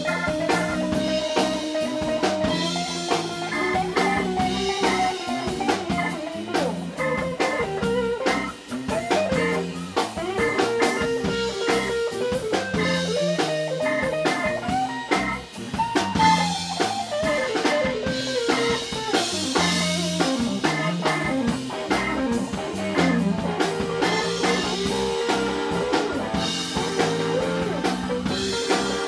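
Live band playing: Hammond B-3 organ, electric guitar, bass guitar and drum kit, with a melodic lead line wandering up and down over a steady drumbeat.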